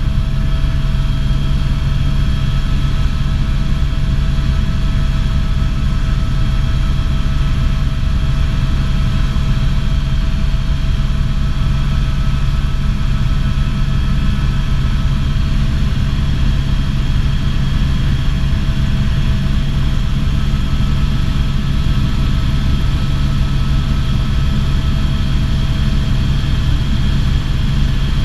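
Helicopter in flight, engine and rotor running steadily: a constant low drone with a steady whine above it.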